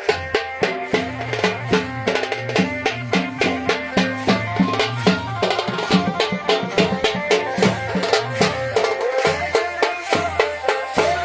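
Wedding band playing: drums beat a fast, steady rhythm under a melody line.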